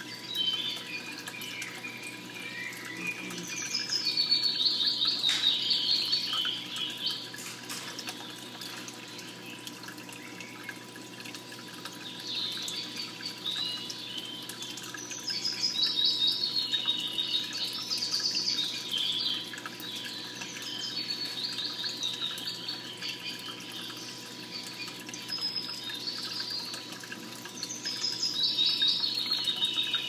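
Recorded bird song played back: birds chirping and calling in bouts of a few seconds, over a steady trickling, water-like background and a faint steady hum.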